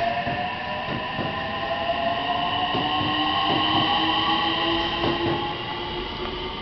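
JR West 225 series 5000 electric local train pulling out of the station and gathering speed. Its inverter-driven traction motors whine in several steady tones that slowly rise in pitch, with wheels clacking over the rail joints. It is loudest about four seconds in, then fades as the last car goes by.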